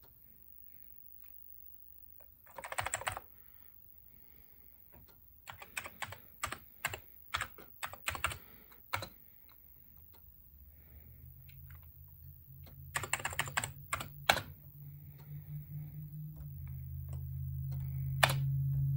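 Amiga keyboard with a fresh flexible membrane being typed on: a quick run of key clicks, then separate keystrokes, another short run and a last single click. A low steady hum comes in during the second half and grows louder.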